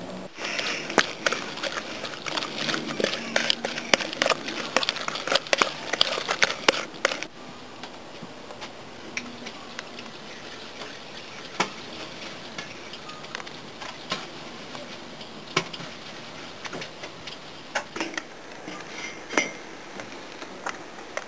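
Kitchen utensil sounds during food preparation: about seven seconds of dense, irregular clicking and knocking. After an abrupt cut there are scattered single clinks, such as a metal spoon against a salsa bowl.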